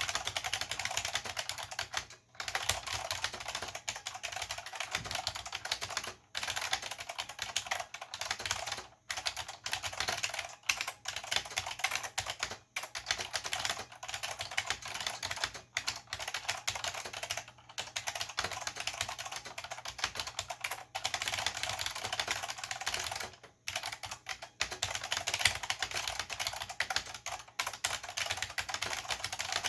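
Continuous fast typing on a Chicony KB-5301 keyboard with Chicony buckling-spring switches: a dense run of clicky keystrokes, each with a hollow bottom-out clack, broken by brief pauses every few seconds.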